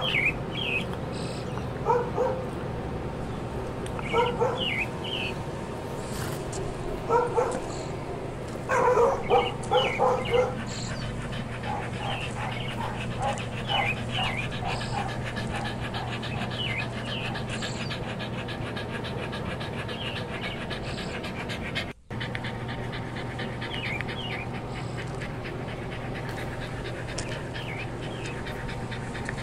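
A dog panting steadily, with clusters of short, high whimpering calls that are loudest about nine to ten seconds in and fainter later on.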